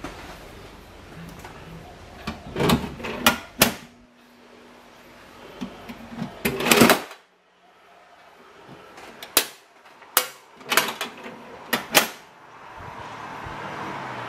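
A series of sharp knocks and clicks with a longer scrape-and-clatter in the middle, from a small metal hand safe being handled.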